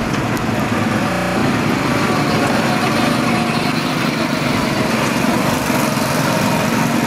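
Small go-kart engines running steadily as several karts drive around the track, some passing close by.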